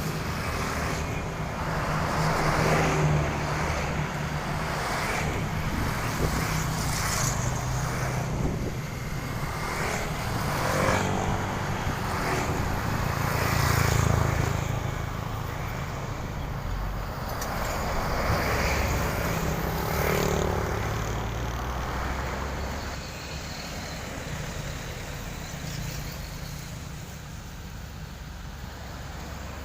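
Motor vehicle and construction machine engines running, with traffic noise that swells and fades several times as vehicles go by, settling quieter in the last several seconds.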